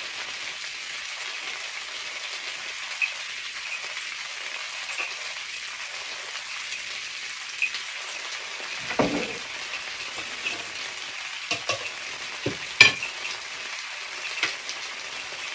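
Chicken wings sizzling steadily in a frying pan, with a few sharp knocks and clicks in the second half.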